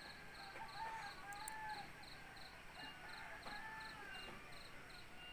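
A cricket chirping faintly in a steady, even rhythm, about three to four high-pitched chirps a second, over the quiet ambience of a rural night.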